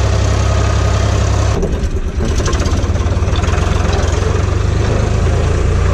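An old tractor's engine running steadily, heard from inside the cab. About a second and a half in, its note drops and turns into a rougher, pulsing beat.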